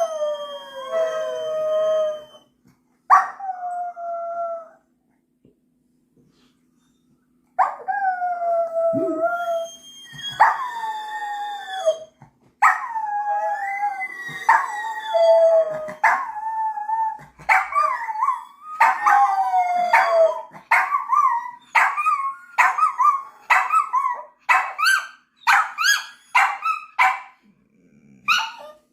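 A dog howling and yipping: a series of drawn-out calls that fall in pitch, with a pause a few seconds in, then a long run that breaks into quick short yips, about two a second, near the end.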